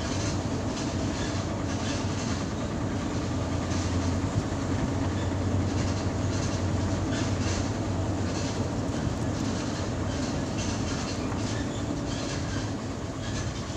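Steady drone of a truck's engine and road noise heard from inside the cab while driving, with loose cab fittings rattling and clattering throughout. The engine gets a little quieter near the end as the truck eases off.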